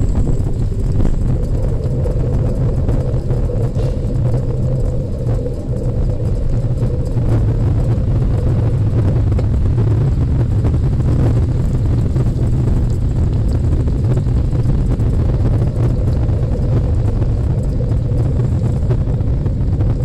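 Steady low rumble of riding along a wet road, with a faint hum over it for the first few seconds.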